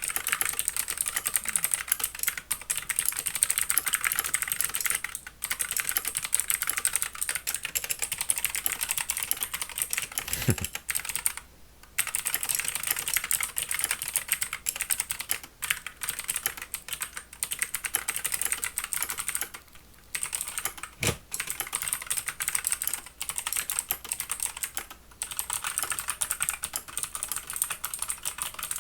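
Skylion H87 mechanical keyboard with clicky blue switches being typed on fast and continuously, a dense stream of sharp key clicks with a few brief pauses. The clicks are cheap-sounding, with some extra noise that the reviewer notices under them.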